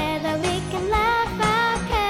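Upbeat children's cartoon theme music: a bright melody over a steady beat.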